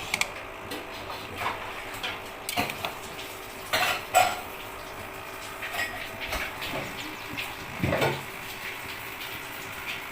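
Cutlery and dishes clinking and clattering at irregular moments, with the loudest clatters about four seconds in and again near eight seconds.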